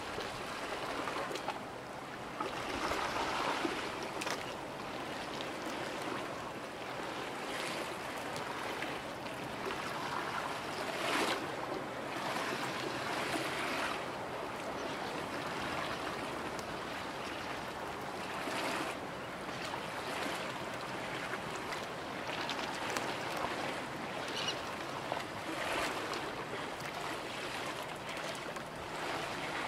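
Small bay waves washing and lapping, the wash swelling and easing every few seconds.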